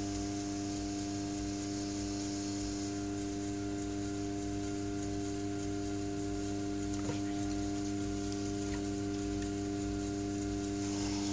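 Electric potter's wheel running at a steady speed, its motor giving a constant, even hum, with a faint click about seven seconds in.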